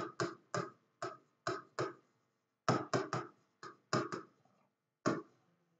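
Pen tip tapping and scraping on a smartboard's writing surface during handwriting: a string of about a dozen short, sharp clicks in irregular little groups, one with each stroke of the letters.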